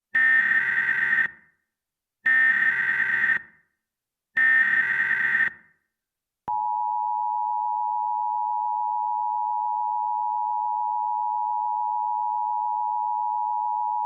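Emergency Alert System SAME header: three short bursts of digital data tones, each about a second long, a second apart. About six and a half seconds in they are followed by the steady two-tone EAS attention signal (853 and 960 Hz sounded together).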